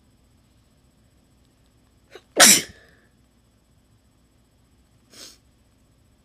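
A person sneezing once, loud and sudden, just after a quick catch of breath. A much quieter short breathy sound follows a few seconds later.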